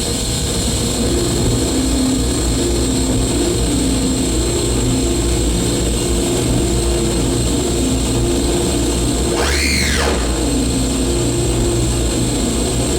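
Live harsh electronic noise music: a dense, loud wall of noise with steady high whines over low droning tones that shift in pitch. About ten seconds in, a quick sweep rises and falls.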